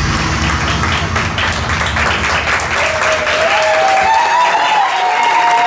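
Audience applauding as the last of the song's deep bass dies away in the first second or so. From about three seconds in, long wavering whoops from the crowd ride over the clapping.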